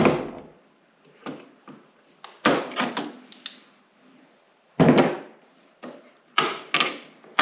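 Scattered knocks and clunks of hands and tools working on a snowmobile's windshield mount and plastic cowling, to free a windshield fastener. There are about ten separate knocks with short clatters between them, the loudest one about five seconds in.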